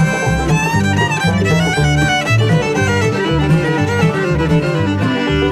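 Bluegrass-style instrumental break with a fiddle playing the melody over a steady plucked bass and guitar rhythm.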